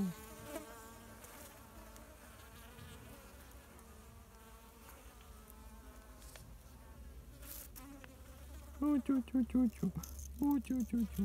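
Wasps and bees buzzing around fallen, rotting plums: a faint buzz for most of the time, then loud wavering buzzing as insects fly close, about nine seconds in and again near the end.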